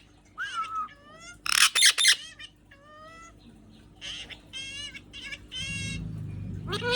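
Pet parrot squawking and calling: short pitched calls that bend up and down, with two loud harsh squawks about one and a half to two seconds in and a quick run of calls around four to five seconds. A low steady hum comes in near the end.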